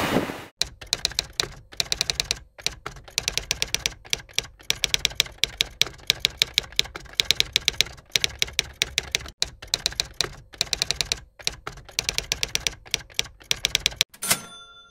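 Typewriter sound effect: keys clacking in quick runs of strikes with short pauses between the runs, then a single bell ding near the end.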